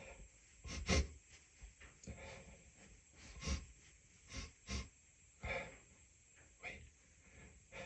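A man's breaths, sniffs and gasps in about six short, separate bursts, the first about a second in the loudest, from a nose tickling and irritated in between sneezing fits.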